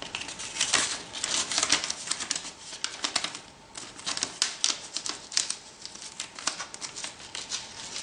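A strip of adhesive tape being handled and folded back on itself to make it double-sided: an irregular run of small sticky crackles and clicks, easing off briefly near the middle.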